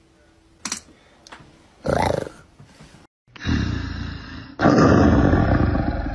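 Loud big-cat roar sound effect, the audio of the TikTok roar challenge. It starts about three and a half seconds in, jumps louder a second later, then slowly fades.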